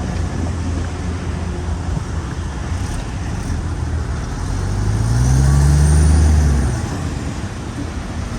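SHANTUI bulldozer's diesel engine running steadily, then revving up louder and higher about five seconds in for around two seconds before settling back.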